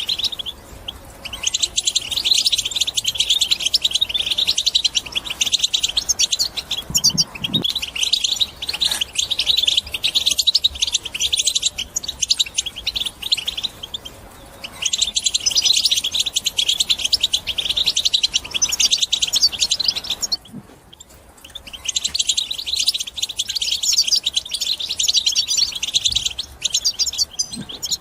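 European goldfinch singing its rapid, twittering chatter, the 'batbata' song used to spur caged goldfinches into song. It comes in long phrases of several seconds with a few brief pauses.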